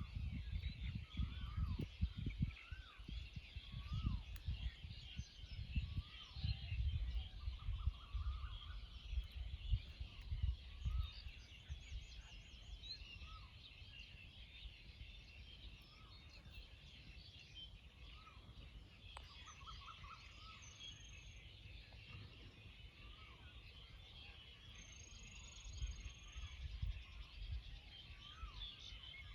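Birds calling in open country: many short rising-and-falling chirps and a few brief trills over a high, busy background chorus. Wind buffets the microphone for the first ten seconds or so and again near the end.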